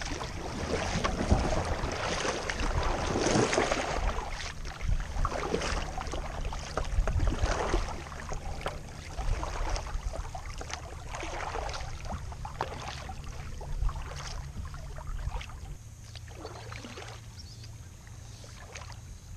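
Water splashing and gurgling as a Wilderness Systems kayak is paddled: irregular paddle strokes and water running along the hull, over a low steady rumble. Louder for the first eight seconds or so, then quieter.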